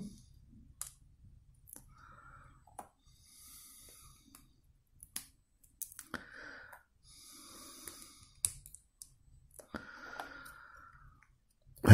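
Plastic building bricks being pulled apart and handled: scattered small sharp clicks with soft handling noise in between.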